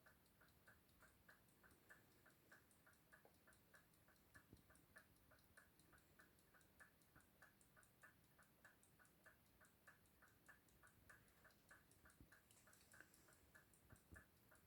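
Soviet-era mechanical alarm clocks ticking faintly and evenly, several ticks a second. The ticking shows the clockwork is running.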